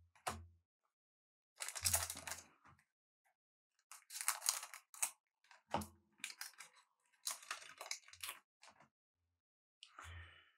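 Trading cards and their packaging being handled: several short bursts of crinkling and rustling, paper and card rubbing and sliding.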